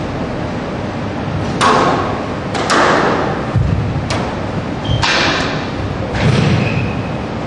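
Squash rally: about six sharp strikes of the ball off racket and walls at irregular intervals, roughly a second apart, some ringing on briefly after the hit.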